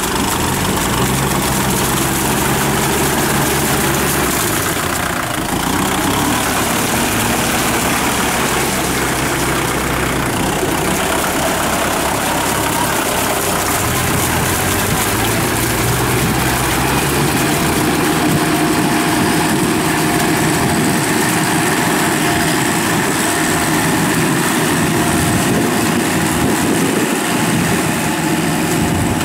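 Kubota tractor's diesel engine running under load as it drags steel cage wheels and a levelling board through paddy mud, the engine note shifting up and down several times.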